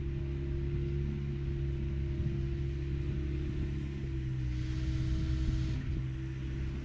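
Diesel engine of a compact construction machine running steadily at a constant speed, with a brief hiss for just over a second midway.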